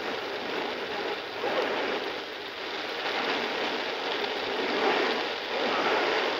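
Shortwave static hissing from the small speaker of a Degen CY-1 radio tuned to 6.250 MHz in the 49-metre band, with no clear voice coming through. The hiss grows a little louder in the second half as the volume is turned up.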